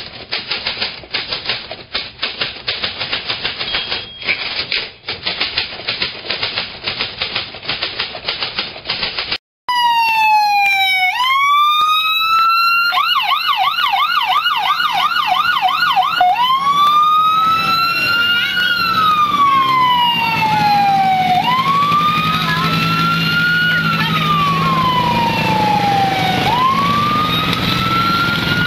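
Rapid typewriter-key clatter for about the first nine seconds, then an emergency-vehicle siren: a few slow rising-and-falling wails, a spell of fast yelping, then long slow wails again.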